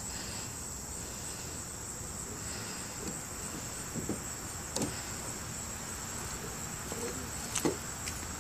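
Steady, high-pitched chirring of insects, with a few faint clicks about five and seven and a half seconds in.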